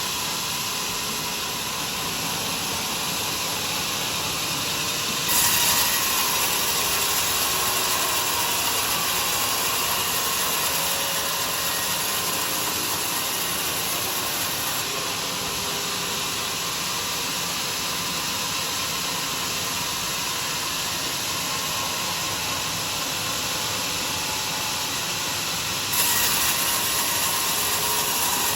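Homemade sawmill running and sawing through a durian log, a steady machine and cutting noise. It turns suddenly louder and harsher about five seconds in, eases off around halfway, and steps up again near the end.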